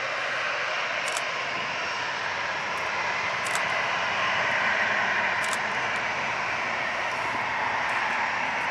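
Airbus A320-214 jet engines, CFM56-5B turbofans, running at low taxi power as the airliner rolls slowly along the taxiway. It is a steady rushing hum that swells slightly midway.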